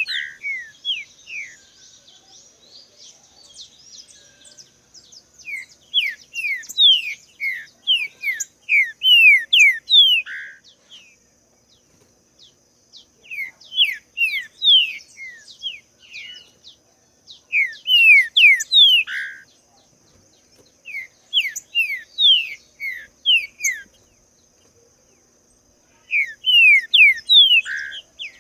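Green-winged saltator (trinca-ferro) singing: about five phrases of quick, clear whistled notes that each slide downward, every phrase closing on a lower, fuller note, with pauses of a few seconds between them. A faint steady high whine runs underneath.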